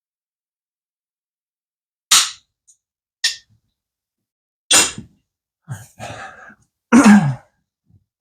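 A handful of sharp clanks and knocks from hand tools and parts being handled in a car's engine bay. The first comes about two seconds in, then about four spaced over several seconds, with some rattling between them and a short grunt of effort with the last, loudest knock.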